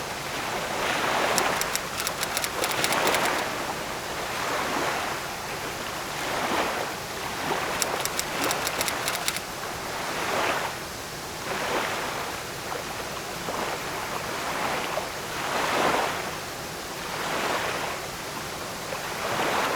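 Rushing water, a noisy wash that swells and ebbs every second or two. Two short runs of rapid, faint high ticks sound over it, one near the start and one about eight seconds in.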